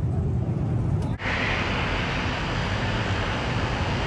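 Airliner cabin noise in flight: a steady drone of jet engines and rushing air with a strong low rumble. About a second in it drops out for an instant and resumes brighter and hissier.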